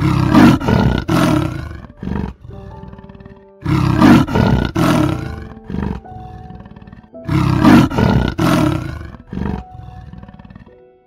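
A large animal's call repeated three times, each about two seconds long and about three and a half seconds apart, over soft background music.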